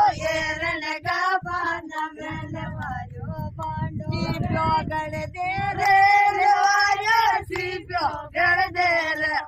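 A group of Bhil women singing a folk wedding song together without instruments, in long held, wavering notes, with a low rumble under the voices through the middle.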